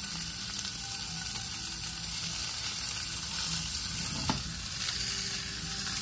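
Seasoned snapper fillets frying in hot olive oil in a nonstick skillet, a steady sizzle. One short knock about four seconds in.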